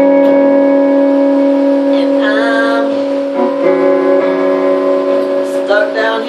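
Music: steady, held instrument notes, with short sung phrases about two seconds in and again near the end.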